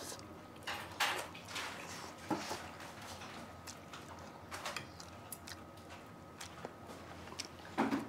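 Quiet eating sounds at a table: irregular light clicks of metal chopsticks and spoons against earthenware bowls, mixed with chewing and mouth noises while pork-bone soup is eaten.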